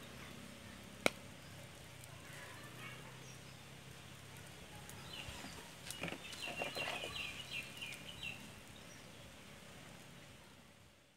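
Faint outdoor background with a single sharp click about a second in, then a bird calling in a quick run of short clucking notes from about five to eight seconds in.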